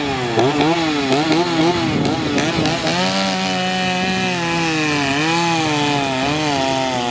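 Two-stroke Stihl chainsaw revved in quick blips for about three seconds, then held at high revs while cutting into a log, its pitch dipping a few times as the chain bites into the wood.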